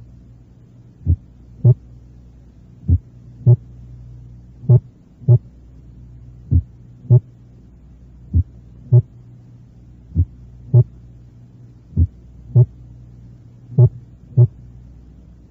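Recorded heart sounds from a patient with complete atrioventricular block: a slow beat, one about every 1.8 seconds (roughly 33 a minute), eight beats in all. Each beat is a pair of first and second heart sounds about half a second apart, and the first sound varies in loudness from beat to beat. A steady low hum runs underneath.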